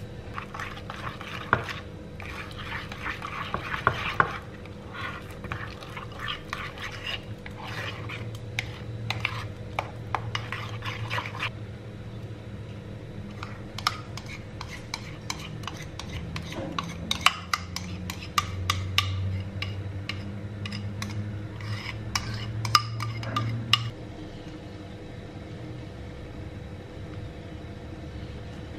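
A metal fork beats pancake batter in a ceramic bowl, clinking and scraping against the sides. Then a spoon scrapes the batter out of the bowl into a nonstick frying pan with sharp clinks. The clinking stops well before the end, leaving a low steady hum.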